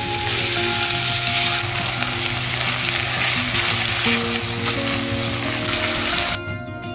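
Minced meat and onions sizzling in a hot oiled frying pan while being stirred with a silicone spatula, over soft background music. The sizzle cuts off suddenly near the end.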